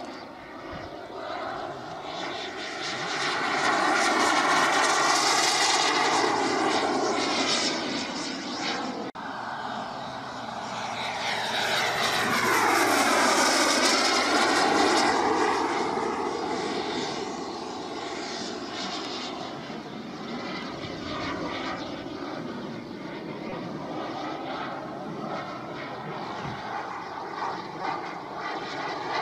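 Radio-controlled L-39 Albatros model jet flying overhead, its engine whine swelling loud twice as it makes close passes, about four and thirteen seconds in, the pitch bending down and back up on the second pass. Between and after the passes it drops back to a steadier, more distant whine.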